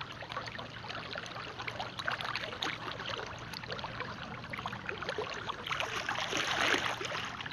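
Wellington boots wading through shallow floodwater over grass, with water sloshing and trickling around them; the splashing grows louder about six seconds in.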